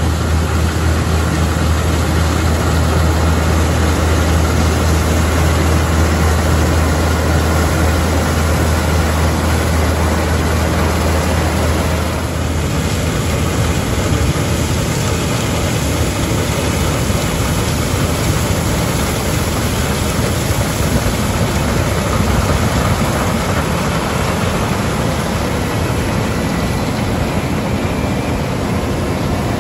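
Combine harvesters running under load while cutting ripe rapeseed. For the first twelve seconds one machine gives a strong steady low hum. After an abrupt change, a New Holland CX8.90 combine's engine and threshing machinery run rougher and noisier as it works through the crop.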